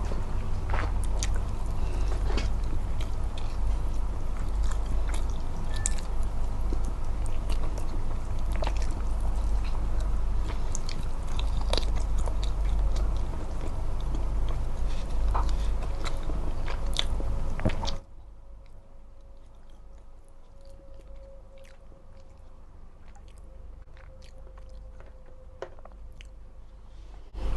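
Close-miked chewing and biting of smoked chicken, with many small wet clicks over a steady low hum. About two-thirds of the way through the hum drops away, leaving fainter clicks of chewing.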